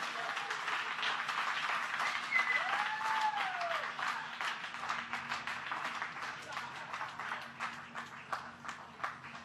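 A roomful of people applauding, with whoops and cheers rising over the clapping about two to four seconds in; the applause thins out toward the end.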